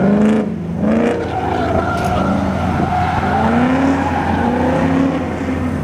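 Car engine revving up and down again and again while the car drifts, with tyres squealing and skidding on asphalt.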